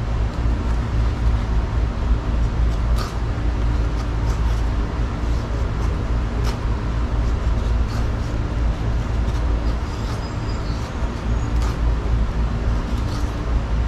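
Knife blade shaving curls off a stick in a few short, scraping strokes at irregular intervals. Under them runs a louder, steady low rumble with a faint hum.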